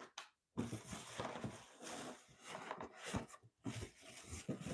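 Hands rummaging through packaging inside a cardboard box, making an irregular rustling and scraping with small knocks.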